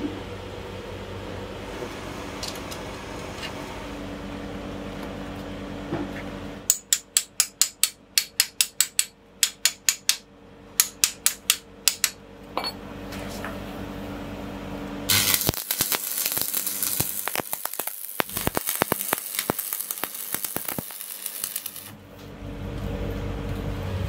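Sharp metallic taps, about four a second, as a stack of steel plates is knocked into line in a bench vise, then about seven seconds of crackling, hissing arc welding that starts and stops abruptly, fusing the ends of the stack. A steady hum runs underneath at the start.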